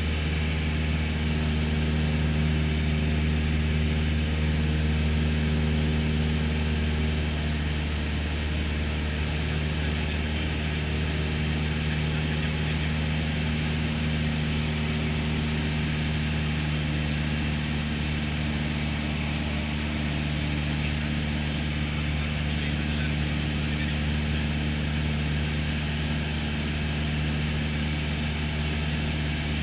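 Piston engine and propeller of a single-engine light aircraft running steadily in cruise, heard from inside the cabin as a constant low drone.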